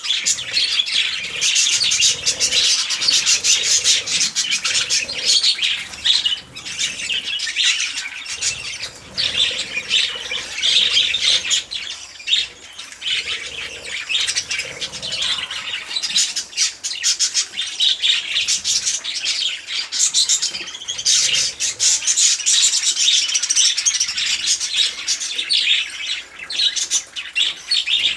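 Many budgerigars chattering and chirping, a dense continuous twitter with no break.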